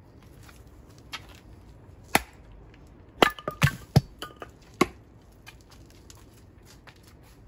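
A blade chopping at a split stick of firewood on a wooden chopping block: sharp knocks, the loudest cluster about three to five seconds in, some with a brief metallic ring.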